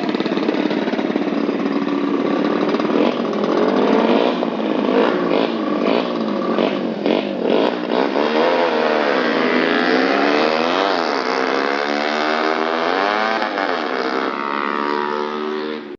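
Motorcycle engines revving hard, the pitch climbing and dropping repeatedly through the first half. From about eight seconds in, two or more engines are heard at once, their pitches rising and falling across each other. The sound fades right at the end.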